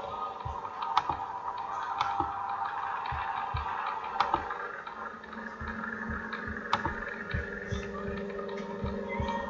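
Scattered sharp clicks from a computer mouse and keyboard, a few seconds apart, over a steady background hum.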